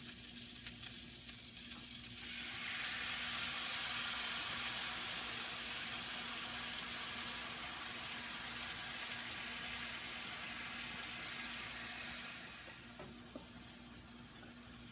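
Sesame chicken sauce sizzling in a hot pan with fried chicken pieces as it heats toward a boil; the sizzle swells about two seconds in and dies down near the end, over a steady low hum.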